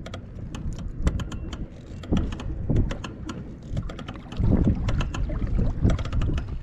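Small waves slapping and knocking against a plastic fishing kayak's hull in irregular sharp clicks, over a low wind rumble on the microphone that swells and fades.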